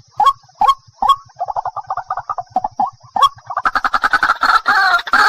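White-breasted waterhen (ruak-ruak) calling: sharp repeated notes about two a second at first, then a fast chattering run, and from about three and a half seconds in a denser, louder series of harsh "ruak" calls.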